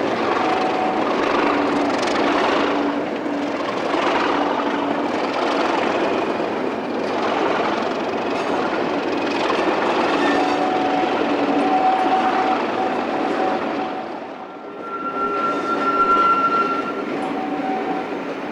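Diesel-hauled train, Class 37 locomotives, running past: a continuous rumble of engine and wheels on rails with some steady tones. The sound dips briefly about fourteen seconds in, then swells again.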